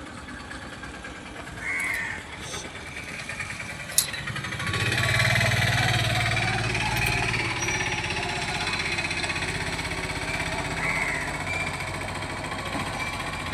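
Heavy machine's diesel engine running, getting much louder about five seconds in and then holding a steady low drone, with a sharp click just before the rise.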